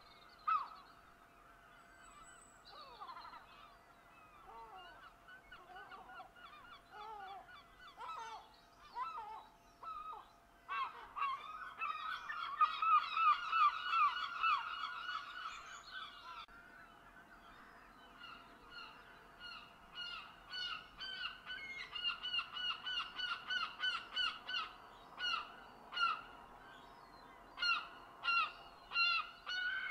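A flock of birds calling with many short repeated calls: scattered at first, then a dense, loud bout about a third of the way in, and after a short lull a steady run of calls about two to three a second.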